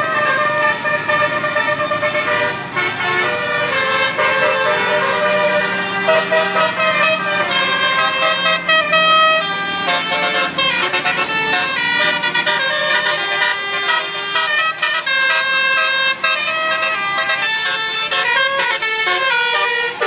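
Multi-tone "telolet" horn of a tour bus playing a melody in quick stepped notes, loud and continuous.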